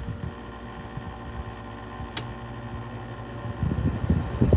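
Fedders Weather Wheel window air conditioner running, compressor and fan humming steadily. A single click comes about two seconds in, and the air rush grows louder and rougher near the end as the fan speed is changed.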